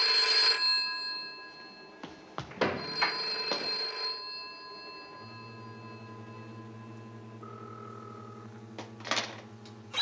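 Telephone bell ringing: one ring dies away within the first second, a second ring follows a couple of seconds later, then a low steady hum takes over.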